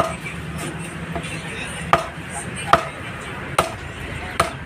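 Large butcher's knife chopping pork on a round wooden chopping block: about five sharp, irregularly spaced chops, with a couple of lighter taps between them.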